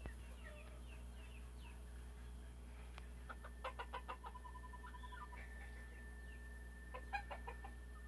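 Gamefowl chickens clucking faintly in short runs, a cluster about three and a half seconds in and another near the end, over a low steady hum.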